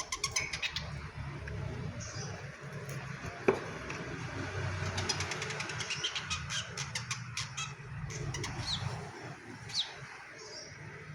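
Songbird calls: rapid runs of clicking chatter and two short falling chirps, with one sharp click in between, over a low steady hum.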